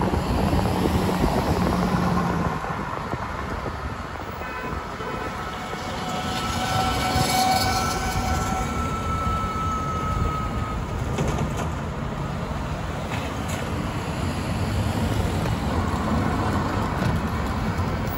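Steady rumble of riding on a motorcycle, with road and wind noise. A faint whining tone comes in about a third of the way through and dips slightly in pitch before fading.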